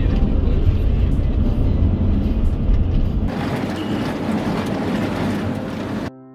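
Vehicle driving along an unpaved desert road: steady rumble and road noise, with a heavy deep rumble in the first half that thins out a little past halfway. Piano music comes in near the end.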